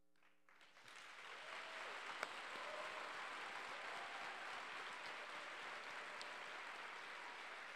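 Audience applauding, building over the first second and then holding steady.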